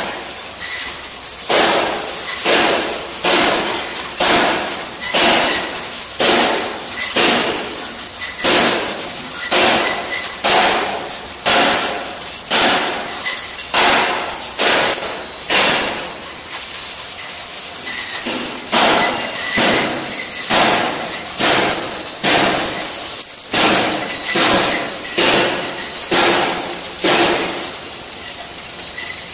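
Automatic chopstick packing machine running, with a sharp mechanical clack about twice a second as it cycles, pausing briefly a little past the middle.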